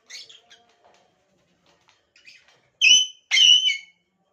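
Pet lovebirds calling: a few soft chirps in the first second, then two loud, shrill screeches about three seconds in, the second one longer.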